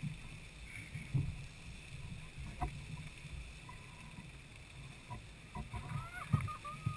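Lady Knox Geyser erupting: a low, uneven rumble from the water column and the spray falling back onto the rocks. Faint short chirps come in near the end.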